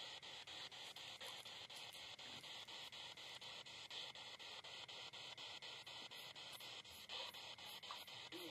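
Spirit box sweeping through radio stations: a faint, steady static hiss chopped by rapid, evenly spaced cuts several times a second as it steps from station to station.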